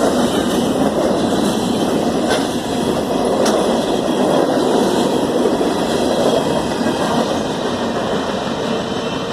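Freight cars of a manifest train rolling past: a steady rumble and rattle of steel wheels on the rails, with two faint clicks a couple of seconds in.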